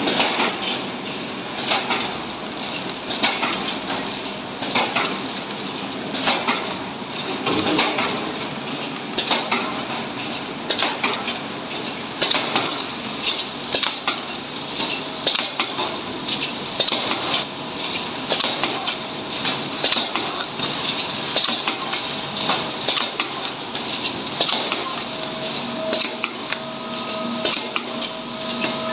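Horizontal flow wrap packaging machine and its cardboard-card dispenser running, with a steady mechanical clatter and a sharp clack repeating about every second and a half, lighter clicks in between. A faint steady whine joins near the end.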